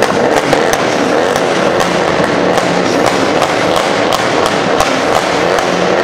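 A car engine running with a rapid, irregular string of exhaust pops and crackles.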